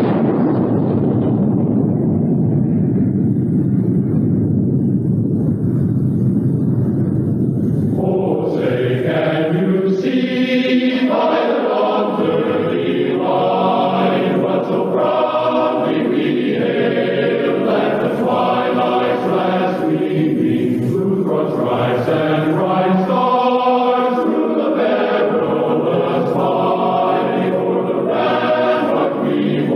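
A low rumbling roar that thins out and dies away over the first several seconds, then a choir starts singing a national anthem about eight seconds in.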